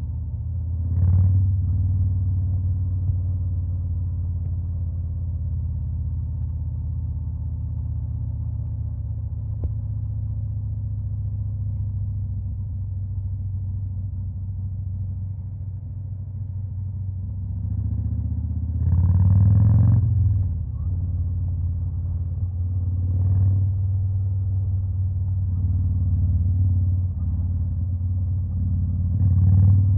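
Harley-Davidson Fat Boy V-twin with a Stage 2 performance upgrade running steadily at idle, with a few short throttle blips: one about a second in, a longer one about two-thirds of the way through, a brief one soon after, and another near the end.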